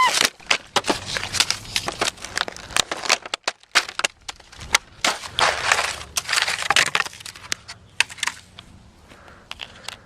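Phone packaging being handled and torn open: dense crinkling and crackling with many sharp snaps and clicks, thinning out near the end.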